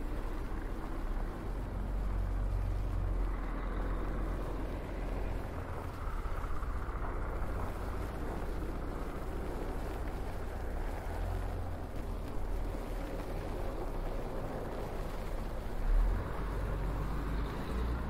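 Outdoor snowstorm ambience: wind on the microphone makes a steady, uneven low rumble over a hiss of outdoor noise, with one stronger gust about two seconds before the end.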